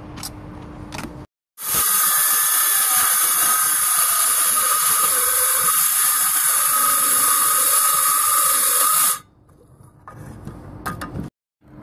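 Cordless circular saw cutting through plywood roof sheathing: a steady, high whine of the motor over the hiss of the blade in the wood. It starts about a second and a half in and cuts off abruptly after about seven and a half seconds.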